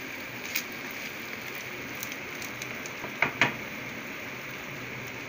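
Tandoori chicken pieces frying in butter and oil in a pan, a steady sizzle with scattered crackles, in the last few minutes of frying. Two sharp clicks a little after three seconds in.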